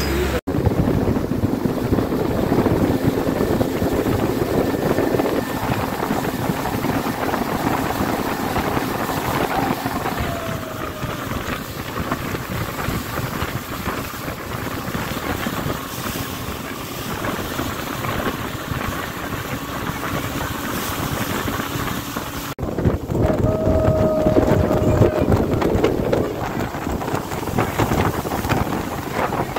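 A speedboat's outboard motor runs steadily at speed, with water rushing past the hull and wind buffeting the microphone.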